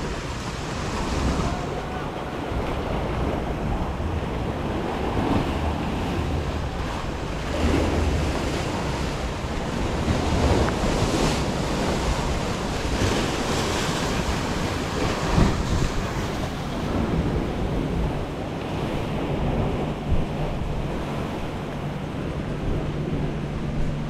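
Sea water washing and splashing in swells, with wind buffeting the microphone. A steady low hum comes in near the end.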